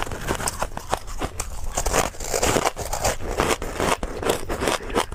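Hard, crunchy frozen ice being chewed close to a clip-on microphone: a dense, irregular run of sharp crackling crunches. Fingers dig into crushed ice in a plastic tub at the start.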